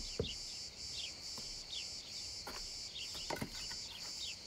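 Crickets chirping in a steady, evenly pulsing high trill, with short falling bird chirps over it and a few soft thuds.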